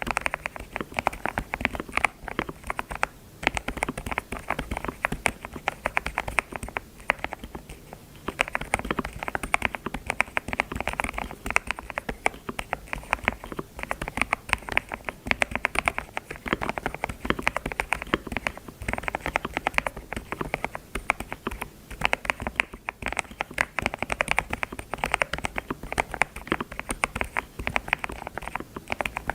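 Rapid typing on a computer keyboard, a steady patter of key clicks in bursts with brief pauses.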